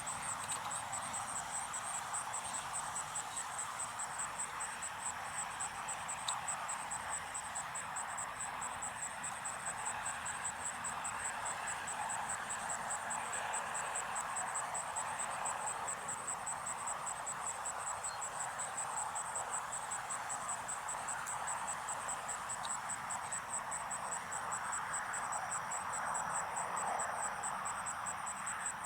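Insects trilling steadily in a high, rapid pulsing chirr, over a steady background hiss of outdoor air.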